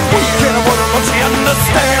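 Loud background rock music.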